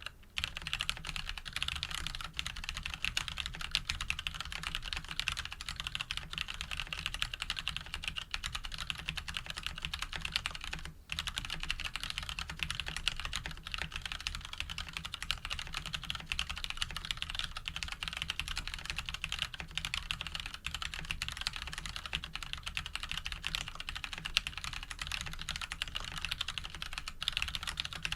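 Custom mechanical keyboard with Cherry MX Brown switches lubed with Krytox 105, a steel plate, Cherry stabilizers and JTK keycaps, typed on steadily and quickly: a dense stream of key clacks. There is a brief pause about eleven seconds in.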